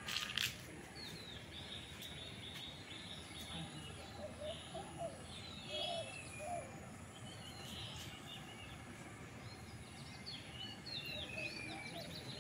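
Outdoor ambience of birds chirping and calling at intervals over a steady background hum, with a brief bump about half a second in.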